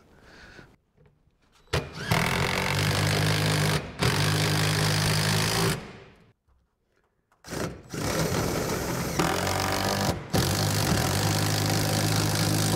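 Cordless power driver driving two 1/4-inch lag screws into the wall to tighten a lumber-rack bracket. The motor runs in two long spells, each with a brief stop partway through.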